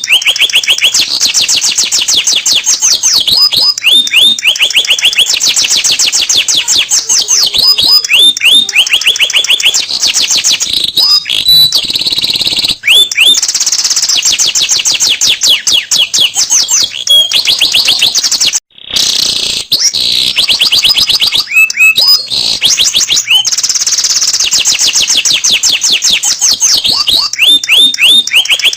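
Domestic canary singing a long, loud song of very rapid trills and whistled notes that swoop up and down in pitch. The song breaks off for a moment about two-thirds of the way through.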